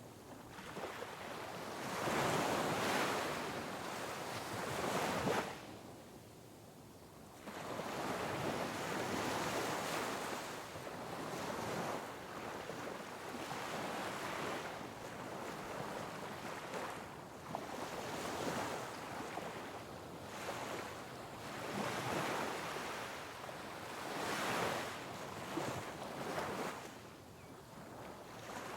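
Sea waves crashing on rocks, the surf swelling and falling in surges every few seconds, with the loudest crash a few seconds in and a brief lull after it. Some wind noise on the microphone.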